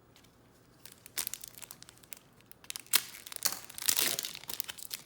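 Wrapper of a trading-card pack crinkling and tearing as it is ripped open, starting about a second in as a quick run of sharp crackles.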